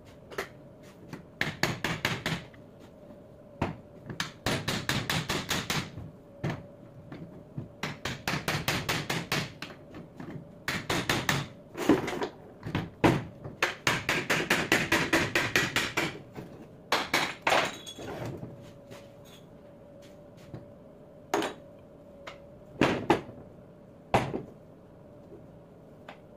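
Hammer striking a 24-volt alternator's aluminium housing held in a bench vise, in bursts of rapid blows and then a few single knocks near the end. The blows are knocking the two halves of the alternator housing apart.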